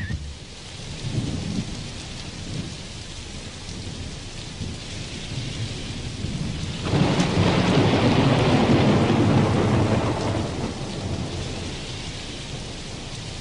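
Steady rushing noise of heavy rain and river water close to a kayak's deck. About seven seconds in it swells suddenly into a louder rush that dies away over a few seconds.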